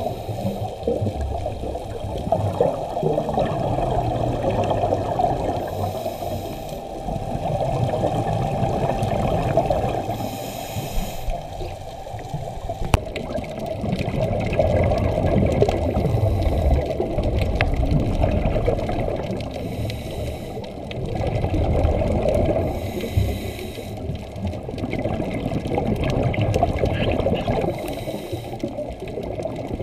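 Scuba breathing heard underwater: a steady gurgling rush of exhaled regulator bubbles, with a brief hiss of the regulator about every four to five seconds.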